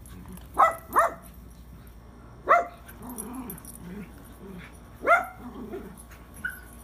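Dogs at rough play, one barking four short, sharp, high-pitched yaps spaced a second or more apart, with quieter low sounds between.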